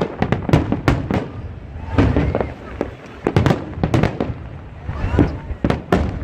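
Fireworks display: a rapid string of sharp bangs and crackles, several a second, bunching into denser volleys about two seconds in, again past the middle, and near the end.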